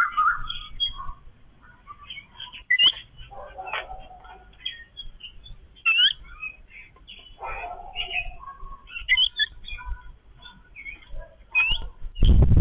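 Yellow-billed babblers calling: a scatter of squeaky chirps and short, sharply rising notes from several birds. A loud, low burst of noise comes near the end.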